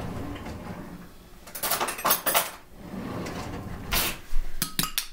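Kitchen handling sounds: knocks and rattles of a cupboard door and dishes being handled at the counter, ending with a quick run of clicks.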